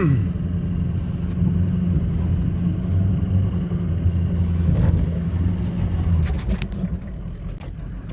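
Pickup truck engine running steadily under a snowplow, with a few sharp knocks a little after the middle.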